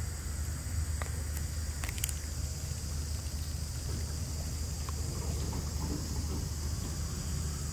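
Steady forest ambience: a constant high insect hum over a low rumble, with a few faint clicks in the first two seconds.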